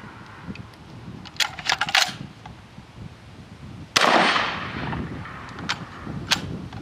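A few sharp metallic clicks of the action being handled, then one shot from a UTAS XTR-12 12-gauge semi-automatic shotgun about four seconds in, with a long echoing tail, followed by a couple more clicks near the end. The gun is fed light loads, which the shooter says don't reliably cycle its action.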